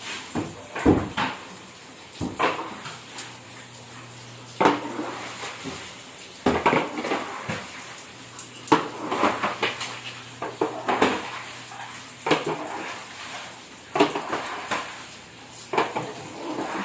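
Metal pots and pans clinking and knocking irregularly, a dozen or so sharp strikes with gaps of one to two seconds.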